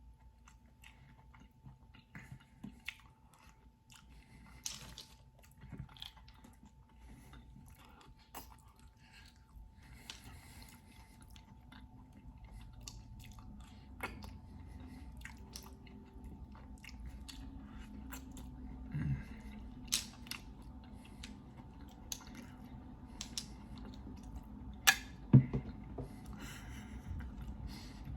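Close-miked chewing and biting of clam meat, with scattered sharp clicks throughout and two louder clicks near the end.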